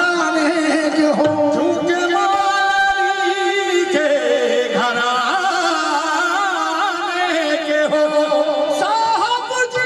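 Qawwali music: sung melody with instrumental accompaniment, the pitch wavering in ornamented runs.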